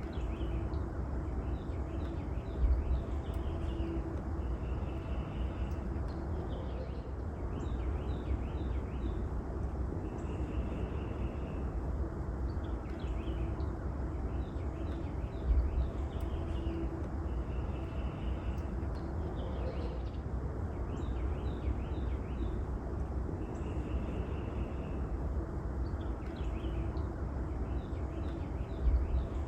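Small birds chirping, with the same cluster of chirps and short trills recurring about every seven seconds, over a steady low rumble. Three dull thumps stand out, near the start, about halfway and near the end.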